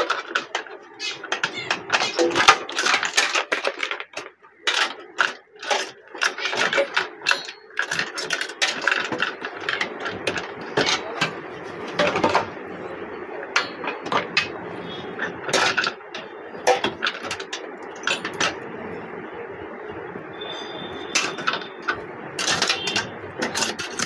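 Computer cables and plastic connectors being unplugged and pulled out of a metal desktop PC case: scattered clicks, rattles and scrapes against the sheet-metal chassis, over a steady background hum.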